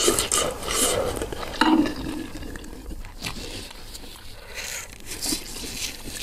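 Close-miked mukbang eating sounds: a spoonful of spicy Samyang ramen broth slurped near the start, then a paper tissue rustling as it is dabbed at the nose and mouth, in a few short noisy bursts.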